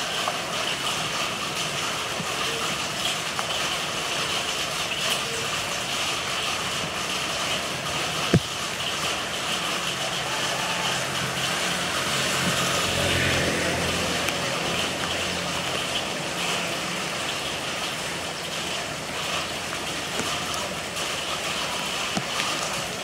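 Steady hiss of rain and water running along a flooded street. A motor vehicle's engine passes through the middle, loudest about halfway, and there is one sharp click about a third of the way in.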